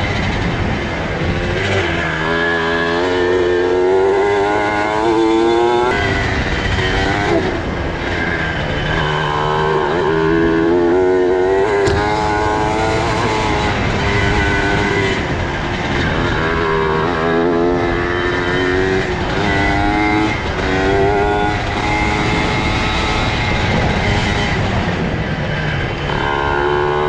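Mini bike engine revving up and dropping back again and again as it is ridden along a dirt trail, with wind noise on the helmet-mounted microphone.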